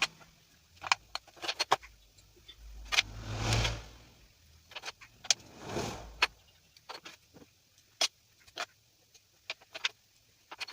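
Small LED bulb parts being handled on a workbench: scattered light clicks and taps, with two longer rubbing, scraping noises, one a few seconds in and one about six seconds in.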